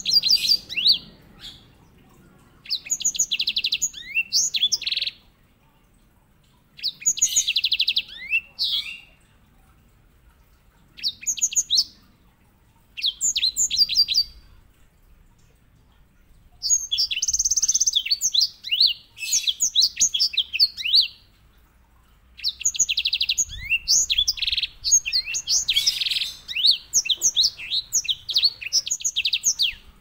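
Grey singing finch (white-rumped seedeater) singing in bursts of fast, high rolling trills mixed with quick downward-sweeping notes. There are about seven phrases with short pauses between them, and the last two run several seconds each.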